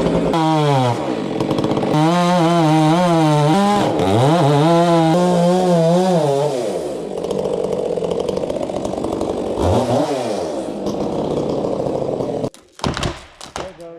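Two-stroke chainsaw revving up and making the back cut of a felling cut, behind the open face notch, to leave a hinge. The engine pitch wavers up and down as it works through the wood, dips and rises again once about ten seconds in, and cuts off about twelve and a half seconds in.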